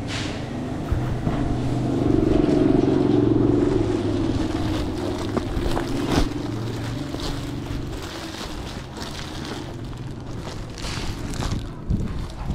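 A motorbike engine running close by, swelling about two seconds in and fading through the middle, followed by scattered crinkles and taps from a foil-covered motorbike cover being handled.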